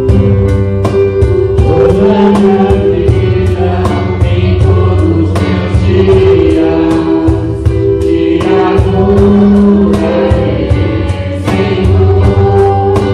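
A man and two women singing a gospel worship song together into microphones, over an instrumental accompaniment with held chords and a steady beat. The voices come in about a second and a half in.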